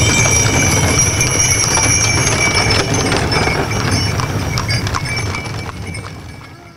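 Many horses' hooves clip-clopping at a walk on a paved road as a procession of riders and horse-drawn carts passes, over a steady low rumble. The sound fades out near the end.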